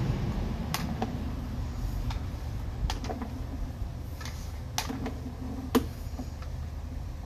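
Sewer inspection camera's push cable being reeled back, with scattered sharp clicks and ticks, about ten of them at irregular spacing and the loudest about three-quarters of the way through, over a steady low hum.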